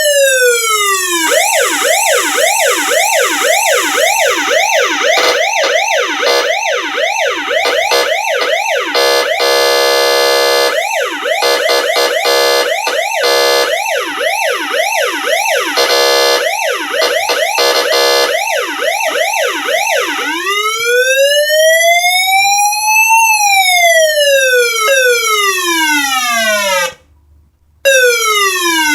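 Homemade PIC16F628A microcontroller siren sounding through a speaker with a buzzy, square-wave tone, cycling through modes. It starts with a slow falling wail, then fast up-and-down yelp sweeps about two a second, broken by two steady harsh buzzes. Near the end comes a slow wail that rises for about three seconds and falls again, cutting out briefly twice.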